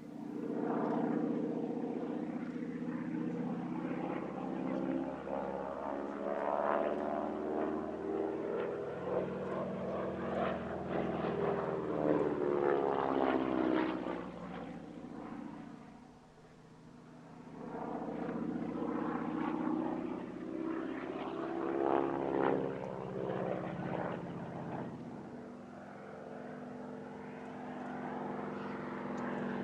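North American Harvard trainer's nine-cylinder Pratt & Whitney R-1340 Wasp radial engine and propeller in flight, passing overhead with its pitch shifting as it goes by. The sound fades to its quietest about halfway through, then builds again as the aircraft comes round for another pass.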